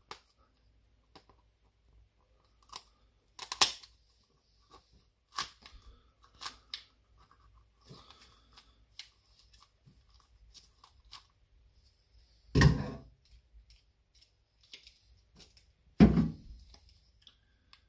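Pruning secateurs snipping up through a woodpigeon's backbone: a scattered series of sharp snips and crunches of bone. Two heavier thumps come about two-thirds of the way through and near the end.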